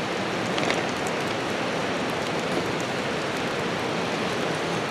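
A river rushing steadily, a constant hiss of running water.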